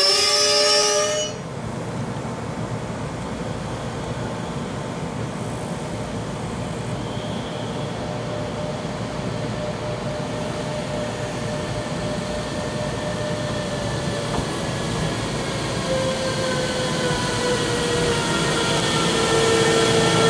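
Bombardier Traxx class 185 electric locomotive running light at low speed toward and past the listener: a steady rail rumble with an electric whine that falls slightly in pitch and grows louder near the end. About a second in, a high multi-tone squeal from the moving freight train cuts off abruptly.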